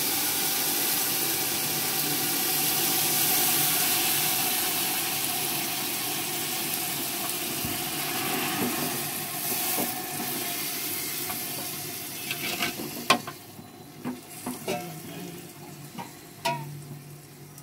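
Hot water sizzling and bubbling in a pot of ghee-fried vermicelli and melted sugar. The sizzle fades from about two-thirds of the way in. A wooden spatula stirs the pot, knocking sharply against the metal a few times near the end.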